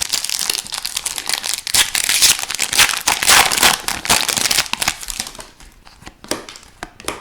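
Foil wrapper of a hockey card pack being torn and crinkled, a dense crackling for about five seconds, then a few light clicks as the cards are handled.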